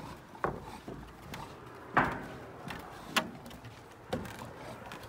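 Footsteps knocking on the wooden planks of a footbridge as a person and a bulldog walk across it: about six uneven knocks, the loudest about two seconds in.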